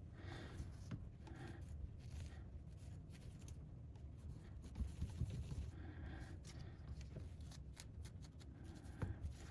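Faint scratchy rubbing and scraping with small clicks as dried-out thermal paste is wiped off a laptop's CPU and GPU, over a low steady hum.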